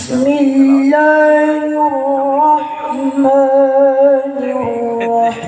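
A male qari chanting in the melodic Quran-recitation (tilawah) style: one voice holding long, wavering notes that step up and down in pitch a few times.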